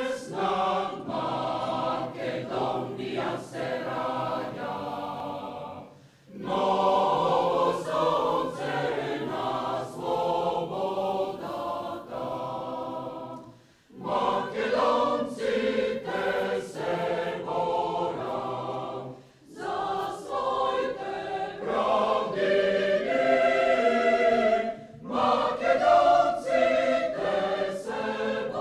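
Mixed choir singing an anthem, in long phrases with brief pauses between them.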